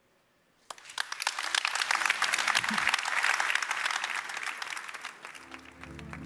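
A large audience applauding, starting about a second in after a brief hush, swelling and then tapering off. Music begins near the end.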